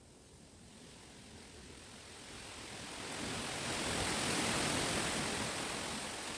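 A gust of wind through a chestnut wood, the leaves and stems rustling as a steady hiss. It builds from about a second in to a peak around four seconds, then eases.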